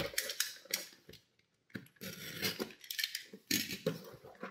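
Cardboard tackle subscription box being opened: irregular scraping, crinkling and clicking of cardboard and packaging, with a short pause about a second in.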